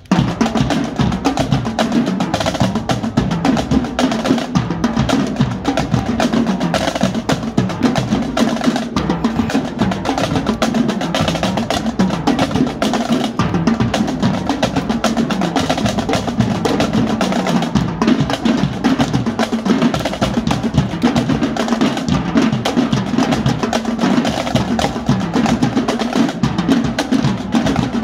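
Marching drumline playing a fast, continuous cadence on snare drums, tenor drums and bass drums.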